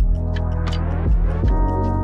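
Background music with a slow, steady beat: deep thumps about every second and a half and light ticks in between, over held chords that shift to new notes about three-quarters of the way through.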